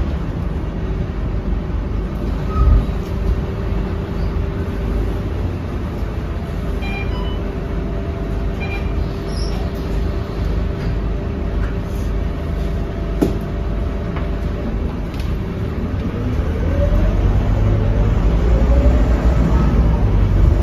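Scania K230UB bus's five-cylinder diesel heard from inside the cabin, idling with a steady low rumble and hum. About three-quarters of the way in, the engine revs up and grows louder as the bus pulls away, its pitch rising. A few faint short electronic beeps and a single click come partway through.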